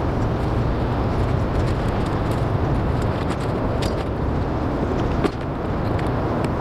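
Steady low rumble of loud background noise, of the engine or traffic kind, with a few faint clicks over it.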